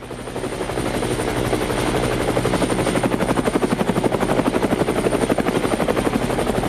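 Helicopter flying close overhead, its main rotor blades chopping in a fast, even beat, growing louder over the first couple of seconds, with a thin high steady whine above the chop.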